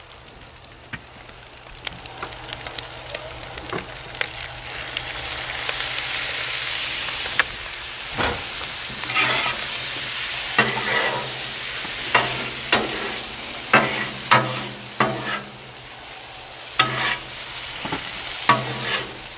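Potato salad sizzling on a hot Blackstone steel flat-top griddle after a splash of white vinegar, the sizzle building over the first several seconds. From about the middle on, a metal spatula scrapes and clacks on the griddle in repeated strokes as the food is turned and folded.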